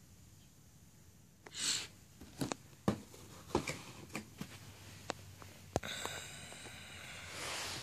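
A shoebox and its wrapping being handled by hand. A short rustle comes about a second and a half in, then a string of sharp clicks and taps, then a longer rustle near the end.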